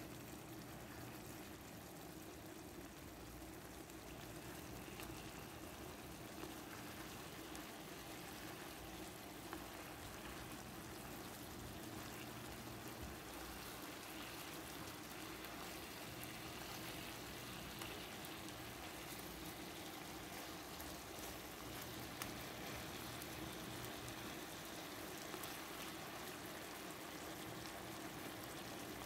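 Marinated chicken pieces bubbling and sizzling in oil and their own juices in a pan: a steady crackle with occasional small pops.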